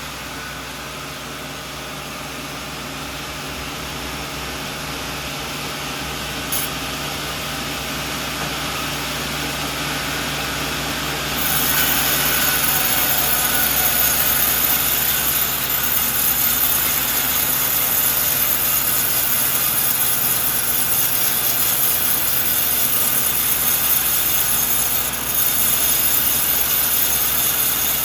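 Sawmill running with a steady engine drone. About a third of the way in the sound turns louder and brighter as the saw cuts into a coconut log, and it stays that way.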